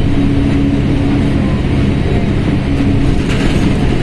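Mercedes-Benz OF1721L BlueTec 5 bus's diesel engine running at steady revs: a constant drone with a few even low tones.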